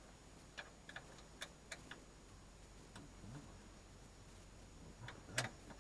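Faint, scattered clicks and light taps, about half a dozen spread irregularly, with one louder click near the end: small hand tools and parts being handled while working on a loader's ignition.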